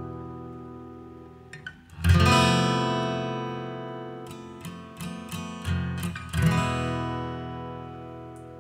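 Background music on acoustic guitar: strummed chords that ring out and slowly fade, one about two seconds in and another near the end, with lighter plucked notes between.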